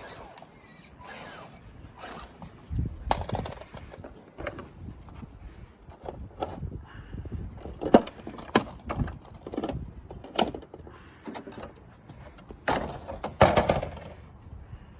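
Irregular knocks and clatters from an Axial SCX10 RC rock crawler, hard parts striking now and then, the sharpest about eight seconds in and a louder cluster near the end.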